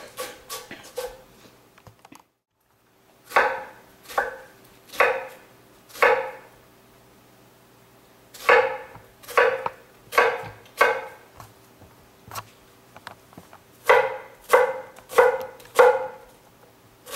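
Chef's knife chopping an onion on a wooden end-grain cutting board: crisp separate knocks of the blade through the onion into the board, in runs of about one to two strikes a second. The sound cuts out completely for about a second, about two seconds in, and a faint steady hum sits underneath.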